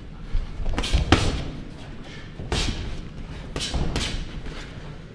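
Boxing gloves landing punches during sparring: a series of sharp thumps, about five in all, the loudest just over a second in.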